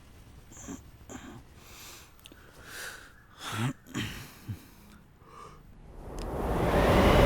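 A few short breathy sounds and low vocal noises from a drowsy person being roused from sleep. Over the last second or so a whooshing swell of noise grows steadily louder.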